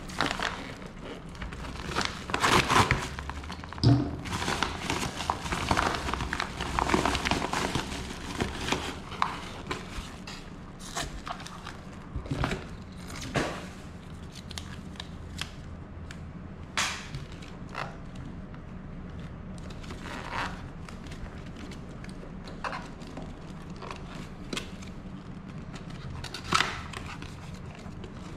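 Plastic mailer bag crinkling and rustling in dense bursts as it is opened, then separate short rustles, taps and scrapes as a small cardboard watch box is handled and its sleeve slid off.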